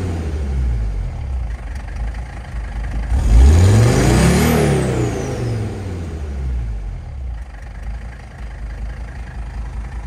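Mercedes OM617 five-cylinder turbodiesel idling. It is revved once, about three and a half seconds in, with the engine note and a high turbo whistle rising together and then falling away. It settles back to an idle that the owner guesses at about 800 rpm.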